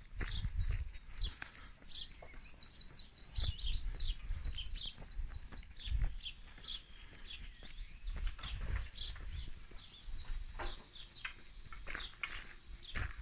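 A songbird singing: several quick runs of high, evenly repeated notes in the first half, with fainter chirps later. Beneath it are the low bumps of someone walking on tarmac.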